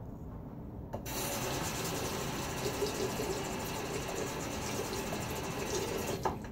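Bathroom sink faucet running, a steady rush of water into the basin. It is turned on about a second in and shut off just before the end.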